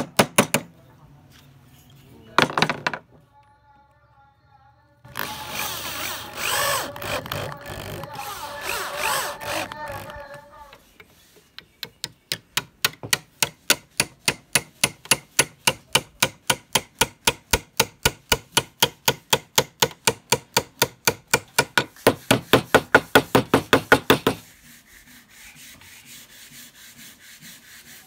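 A steel hammer knocking a metal plate into a hardwood block, a few sharp blows, then a stretch of rough scraping. Then a long, even run of light hammer taps on wood, about three a second, driving a thin wooden strip into a groove, which stops abruptly.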